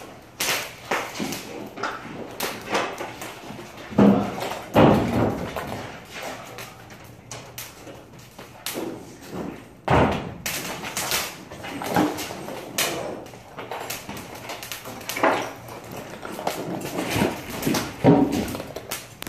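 Irregular knocking, clattering and thuds of drywall-hanging work, with a few heavier thuds spread through.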